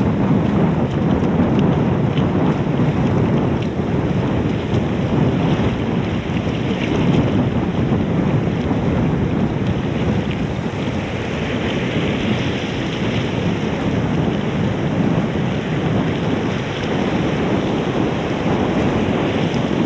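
Ocean surf breaking and washing over the shallows, heavily overlaid by wind buffeting the microphone; a steady, loud rumbling noise throughout.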